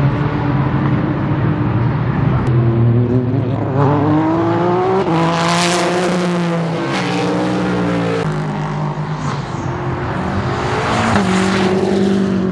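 Race cars passing at speed on a road course. The engine note climbs as one car approaches and then falls away over a few seconds, and another car swells past near the end.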